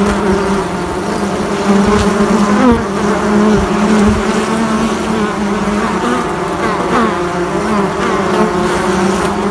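Bees buzzing: a steady drone from a crowd of bees, with single bees now and then passing close, their buzz briefly rising and falling in pitch.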